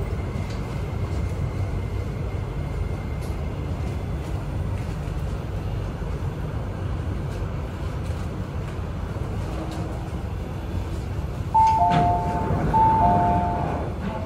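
MTR metro train's interior running noise, a steady low rumble, as it slows into a station and stops. About twelve seconds in comes a thud, then a two-note electronic door chime sounding twice.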